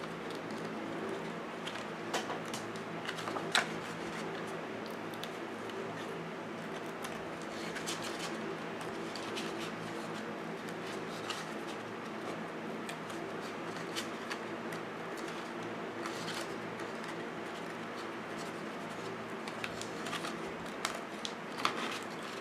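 Fingernails picking at and peeling the paper backings off small foam adhesive dots: scattered small clicks and scratches over a steady low hum.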